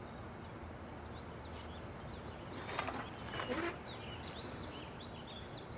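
Outdoor ambience: small birds chirping with many short high calls over a steady background hiss.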